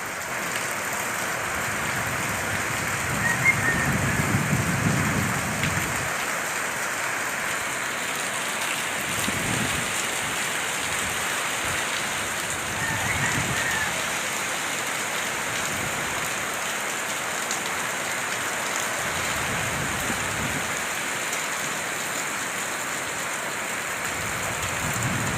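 Heavy rain pouring steadily, with strong wind gusting in low surges several times.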